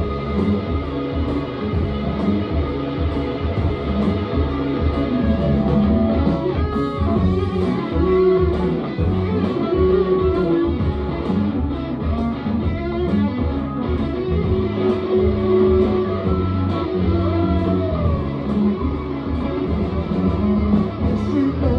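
Live electric blues band playing an instrumental passage: electric guitars over bass and a steady drum beat, with no singing.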